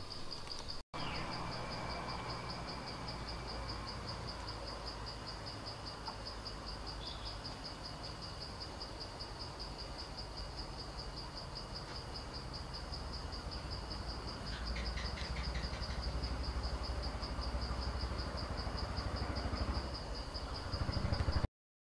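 An insect chirring steadily in a fast, even pulse, over a low rumble that grows louder in the second half. The sound cuts off suddenly near the end.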